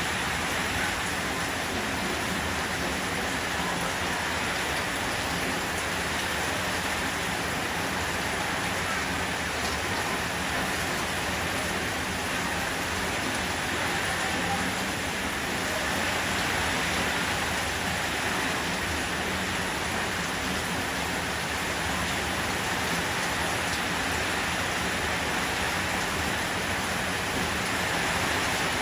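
Steady rain falling, an even hiss with no breaks and no thunder claps.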